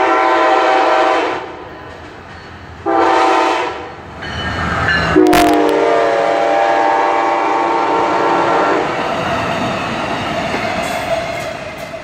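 Amtrak Cascades passenger train passing at speed, its locomotive horn sounding: a long blast, a short one, then a long blast that drops in pitch as the locomotive goes by, with a sharp thump at that moment. The rumble and clatter of the passing cars follows and fades.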